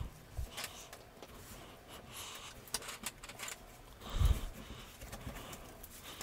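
Hands kneading, squeezing and pulling a large mass of mixed slime, giving a run of small crackling clicks and two soft low thumps, one at the start and one about four seconds in.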